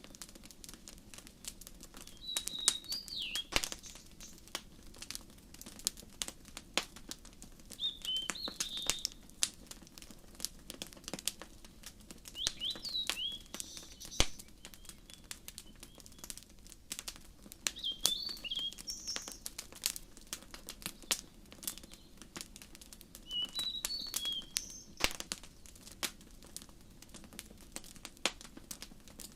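Wood fire crackling with irregular snaps and pops. Over it a songbird repeats a short chirping phrase about every five seconds.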